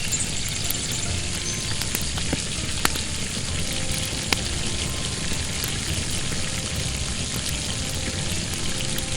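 Whole fish frying in hot oil: a steady sizzle with occasional sharp pops and crackles.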